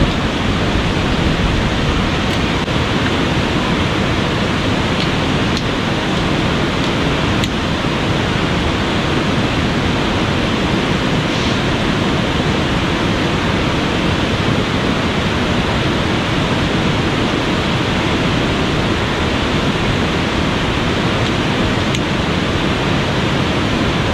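Steady rush of a fast-flowing river running high after rain, with a few faint clicks of folding camp-frame poles being fitted together.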